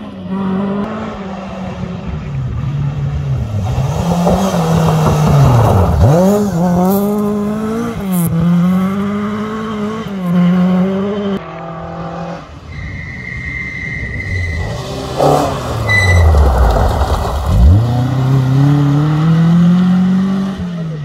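Rally car engine revving hard on a gravel forest stage. The pitch climbs through the gears, then drops sharply twice as the driver lifts off, and climbs again as the car pulls away. A short high whistle-like tone comes about two-thirds of the way through.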